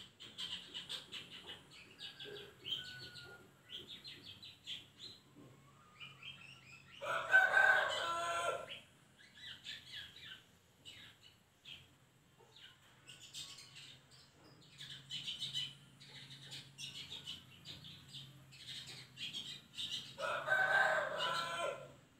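Long-tailed shrike (cendet) giving many short, quick chirps and chattering calls. A rooster crows twice, about seven seconds in and again near the end, each crow the loudest sound.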